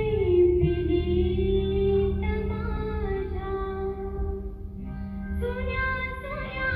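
A young woman singing a Marathi song solo into a microphone, holding long notes that bend slowly in pitch, with a steady low note underneath.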